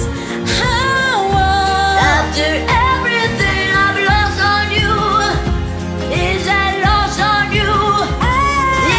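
Pop song: a singing voice over a backing track, the voice gliding up and down in long phrases.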